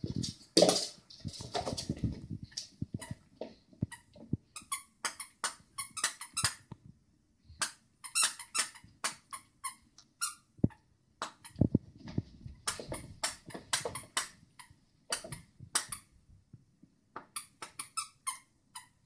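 Rubber squeaker in a plush dog toy squeaking over and over in quick clusters of short, high squeaks as a small dog chews and shakes it. There are a few dull thumps in the first two seconds.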